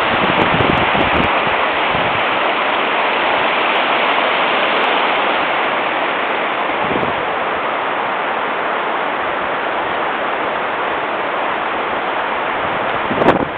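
Water rushing through a beaver dam, a steady loud hiss, with wind buffeting the microphone in a few low gusts. A short sharp sound comes near the end.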